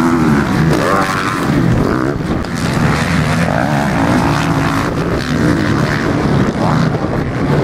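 Several MX1-class motocross bikes racing past, their engines revving up and down one over another, pitch rising and falling as the riders work the throttle through the turns.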